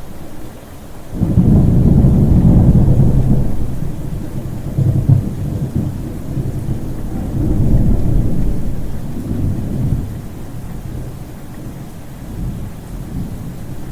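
Thunder: a sudden loud crack-and-rumble about a second in, then rolling on in several lower swells that die away, over a steady hiss.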